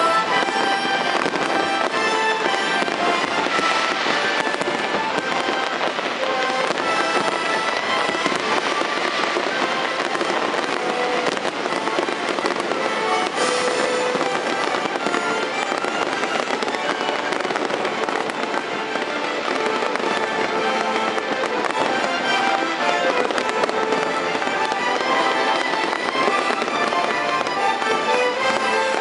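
Fireworks display going off continuously, a dense run of crackling and popping bursts, with music playing throughout.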